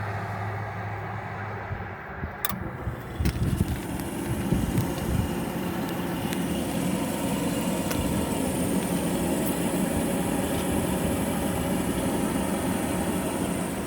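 Gas furnace starting up: a sharp click, then a fan motor spins up and runs steadily.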